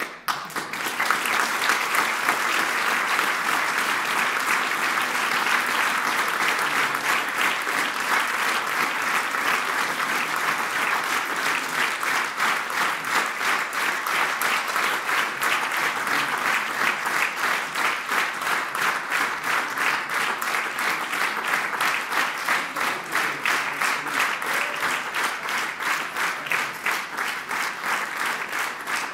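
A theatre audience applauding. The applause breaks out suddenly and in the second half settles into clapping in unison with a steady beat.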